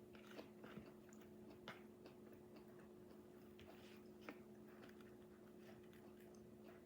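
Near silence: faint, scattered clicks of quiet chewing and mouth sounds over a low steady hum.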